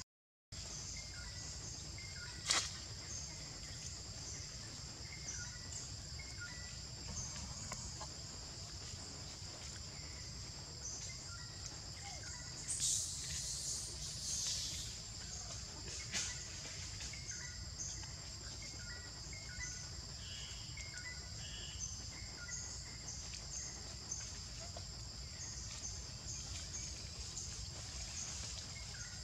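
Outdoor ambience dominated by steady, high-pitched insect buzzing over a low rumble, with a brief rustle about 13 seconds in.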